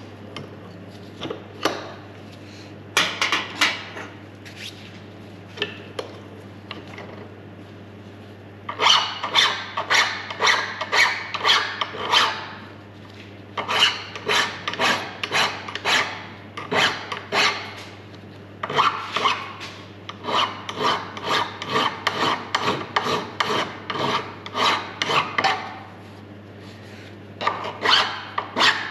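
Hand file rasping over a machined workpiece in quick strokes, about two to three a second, in runs of several seconds with short pauses. A steady low hum runs underneath.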